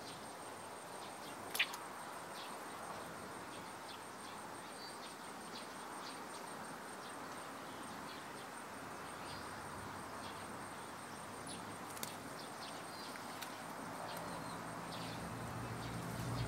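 Garden ambience: a steady hiss with scattered faint chirps and ticks of birds and insects, and a faint steady high-pitched whine. A sharp click about a second and a half in, and a low rumble building near the end.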